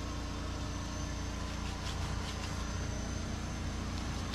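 Steady low hum of an engine running at a constant idle. Around two seconds in there are a few faint crisp scrapes from a knife slicing through a loaf of bread.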